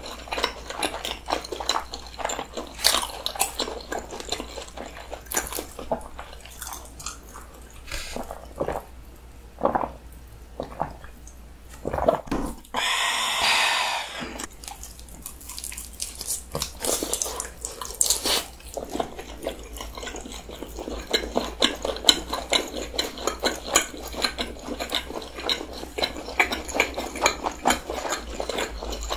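Close-miked eating sounds of two people chewing fried snack food, a run of wet mouth clicks and smacks, with one denser, louder stretch of about a second and a half near the middle.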